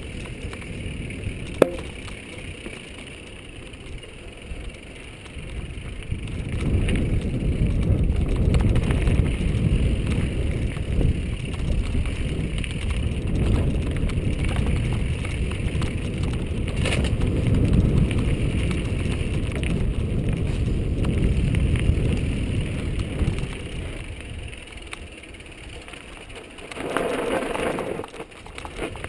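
Mountain bike riding a dirt singletrack, with wind rumbling on the microphone over the bike's tyres and frame rattling on the trail. The wind rumble swells from about six seconds in and eases off about twenty-three seconds in. There is a sharp click about two seconds in and a brief louder rush of noise near the end.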